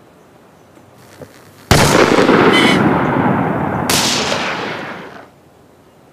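Two gunshots about two seconds apart, fired at geese. Each shot is followed by a long rolling echo, and the sound dies away about five seconds in.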